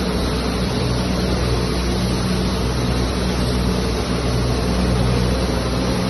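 Machinery of an automatic kettle popcorn processing line running: a steady mechanical drone, a low hum under an even rushing noise.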